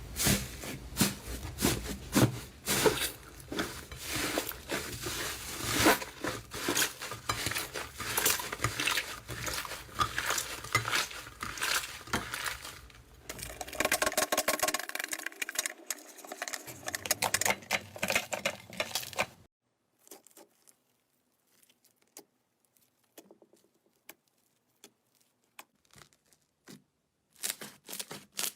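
Slime being squeezed and pressed by hand, with dense crackling and popping clicks. About two-thirds of the way through it drops to a few faint clicks, then crackles again near the end.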